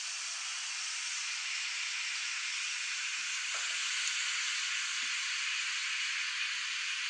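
Food sizzling in a hot frying pan: a steady hiss that sounds much like a running faucet.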